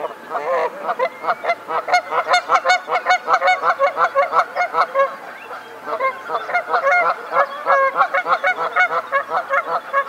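A flock of geese honking, many calls overlapping several times a second, easing off briefly about halfway through before picking up again.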